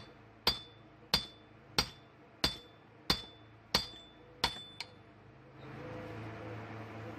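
A hammer strikes metal in a steady series of seven blows about two-thirds of a second apart, each with a short bright ring, then one lighter tap; the blows stop about five seconds in. This is typical of tapping a small hammer head down onto a new wooden handle to seat it.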